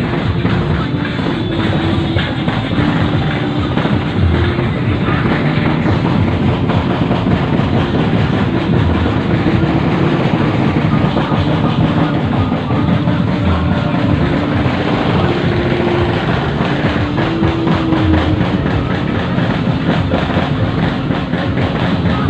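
Loud music with a steady low beat and a held tune, over a dense, continuous wash of background noise.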